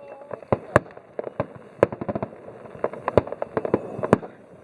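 Fireworks going off: a loud bang about every second, with many smaller pops and crackles in between at an irregular pace.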